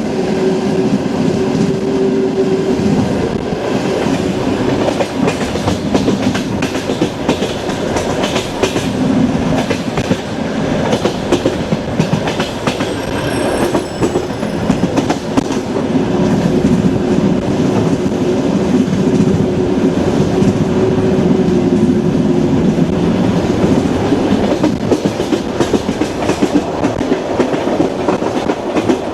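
Train running along the track: a steady rumble with an irregular clickety-clack of the wheels over the rail joints, and a faint high squeal about halfway through.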